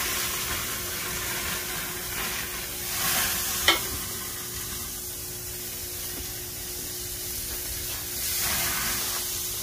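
Steaks sizzling on a gas grill as basting juice is spooned over them, the sizzle swelling at the start, about three seconds in and again near the end. A single sharp metal clink, the basting spoon against the pan, a little under four seconds in.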